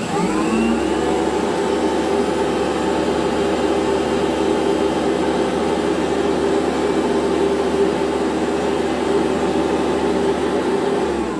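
1979 Goblin Housemaid GL888 upright vacuum cleaner switched on, its freshly rebuilt motor spinning up with a rising whine in the first second, then running steadily. Near the end it is switched off and begins to wind down, the whine falling.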